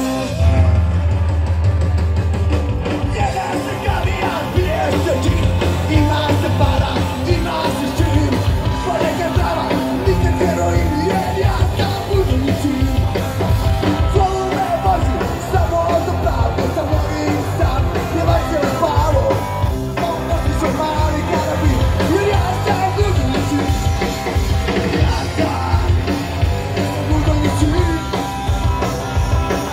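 A live rock band playing loud, with electric guitar, bass guitar, drums and vocals. The music is continuous and its low end is heavy.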